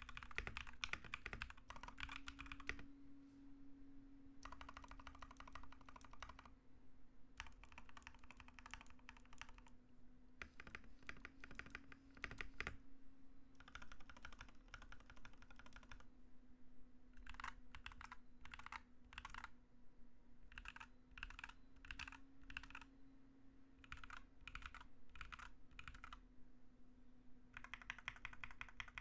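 Typing on a Royal Kludge RK68 mechanical keyboard fitted with stock, unlubed Ashkeebs Alexandrite linear switches, in a case with foam and tape mods. There are fast runs of keystrokes lasting a couple of seconds each, then single keys pressed about twice a second, then another quick run near the end.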